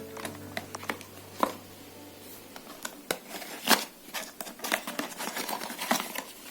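Product packaging being handled as a small box is opened and its paper contents taken out: scattered clicks, taps and short rustles of cardboard and paper.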